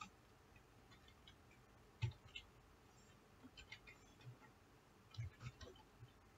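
Faint, irregular keystrokes on a computer keyboard as code is typed, with one louder tap about two seconds in.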